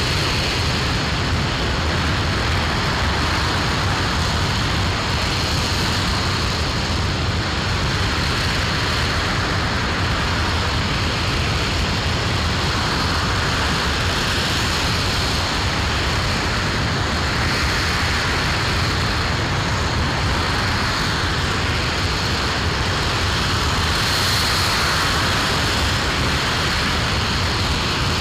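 Aerojet Rocketdyne RS-25 liquid-hydrogen/liquid-oxygen rocket engine firing during a ground hot-fire test. It makes a loud, steady rushing noise with a deep rumble underneath, holding at an even level throughout.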